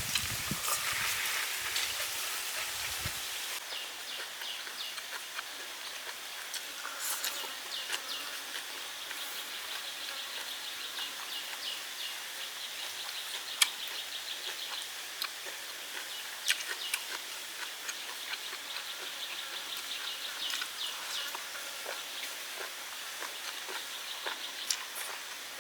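Insects chirping in a steady, fast-pulsing high chorus, with a low rumble in the first few seconds and scattered sharp clicks and taps, the loudest about halfway through.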